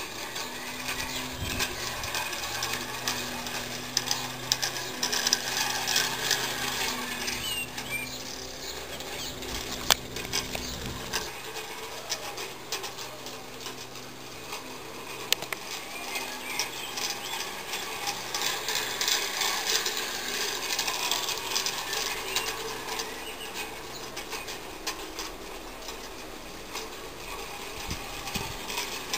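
Gas-fired live-steam garden-railway locomotive, a modified Mamod 0-4-2 tender engine, running around an oval of track: a steady, rapid mechanical clicking and rattling from its exhaust beats and its wheels on the rails. It grows louder twice, about two seconds in and again around eighteen seconds in.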